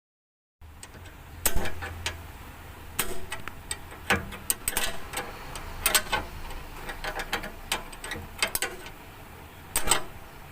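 Irregular metallic clicks and taps of a hand tool as the cleaned positive battery terminal clamp is refitted and tightened onto the car battery post.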